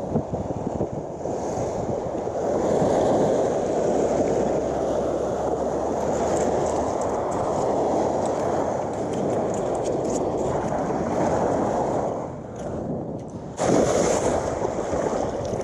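Gulf surf washing onto a sandy beach, mixed with wind buffeting the microphone: a continuous rushing noise that dips briefly and surges again near the end.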